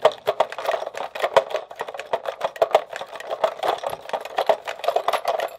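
Switches on a homemade switch-board fidget toy flicked rapidly by hand, a fast, uneven stream of sharp clicks, many a second.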